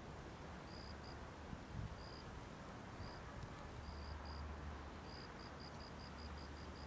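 Faint insect chirping: short high chirps in quick runs of about four or five a second that break off and start again, over a steady low hiss and rumble.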